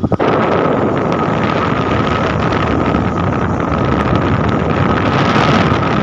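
Wind buffeting the microphone while riding pillion on a moving motorcycle, over the bike's running noise, with a steady high whine throughout.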